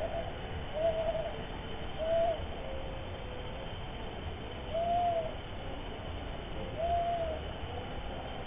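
An owl hooting: short single notes, each rising and falling slightly in pitch, repeated about five times at uneven gaps of one to three seconds, over steady hiss through a CCTV camera's microphone.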